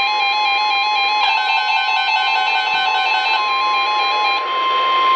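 A steady single-pitch alarm tone, the weather-radio warning alarm that announces a warning broadcast, grows louder about three seconds in and holds past the end. Over its first part runs electronic music with fast stepping tones, which stops near the end.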